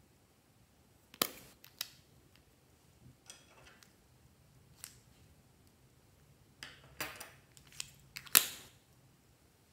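Scissors snipping a purple lipstick stick off its plastic tube, with sharp plastic clicks as the tube and cap are handled: several separate clicks and snips, the loudest near the end.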